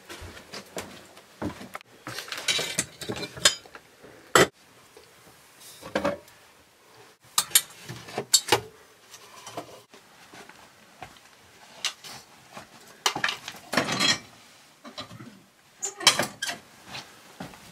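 Crockery being handled: cups and a plastic coffee filter cone taken from a wooden dish rack, clinking and knocking, with a few sharp knocks and stretches of rummaging.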